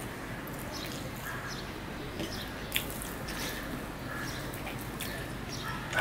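Fingers mixing curry into rice on a steel plate: soft wet squishing with a couple of light clicks against the metal, and a louder burst near the end as a handful goes to the mouth.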